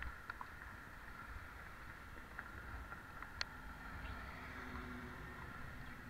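Faint steady rolling noise of a pedicab moving along a street, with a few light clicks and rattles.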